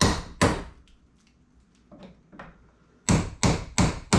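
Hammer blows on wooden tongue-and-groove ceiling boards being knocked loose: two quick strikes at the start, then four more in quick succession about three seconds in.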